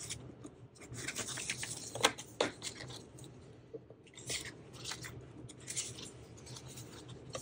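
Paper prop money and a cardstock savings card being handled: rustling and light tapping as a stack of bills is squared and the card is folded around it, with a sharp tick about two seconds in.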